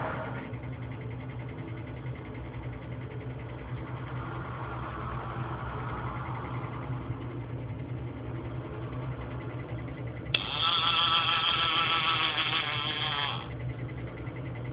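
CRS Robotics A255 robot arm's joint motors whining as the arm moves: a sudden wavering whine about ten seconds in that lasts about three seconds, over a steady low hum.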